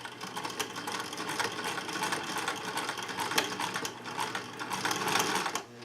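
Singer Touch and Sew sewing machine running at a steady speed, stitching through cotton fabric: a rapid, even needle clatter over the motor's hum. It stops near the end.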